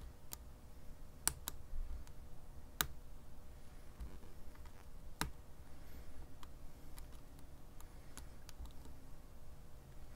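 Small irregular clicks of a lock pick and tension wrench working the pin stacks of a BEST SFIC padlock core, with a few sharper clicks standing out.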